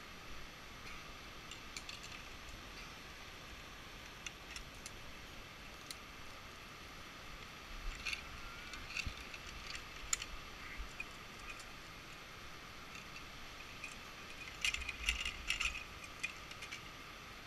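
Metal zip-line harness gear (carabiners, lanyards and trolley hardware) clinking and jangling as it is handled and clipped on. The clinks are scattered, with a busier cluster near the end, over a steady faint hiss.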